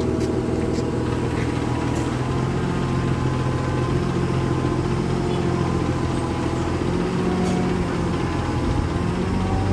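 A forklift's engine running steadily as it holds and positions a heavy load, its pitch stepping up and down slightly a few times.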